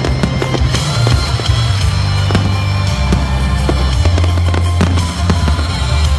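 A fireworks display: ground fountains and aerial shells crackle and pop in quick, irregular succession over loud music with a heavy bass line.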